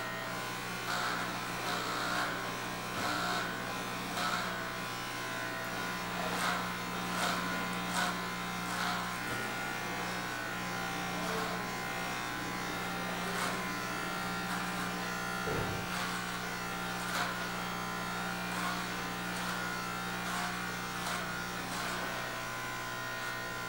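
Corded electric hair clippers buzzing steadily while trimming short hair at the back of the head, with short repeated strokes about once or twice a second as the blades pass through the hair.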